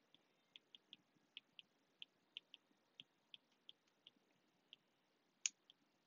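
Faint, irregular ticking of a stylus tip tapping and dragging on a tablet screen while handwriting, about two or three ticks a second, with one sharper click about five and a half seconds in.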